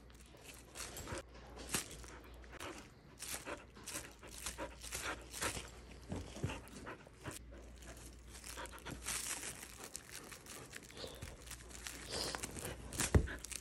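Thin plastic bag crinkling in irregular crackles as a wheaten terrier chews and tugs at it. Near the end there is one loud, short knock.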